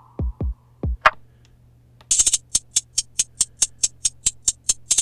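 Trap drum loop sample played back on a Roland VerseLab MV-1 groovebox. Three deep kicks falling in pitch, a sharp clap just after a second in, then rapid hi-hats, about five a second, from two seconds on.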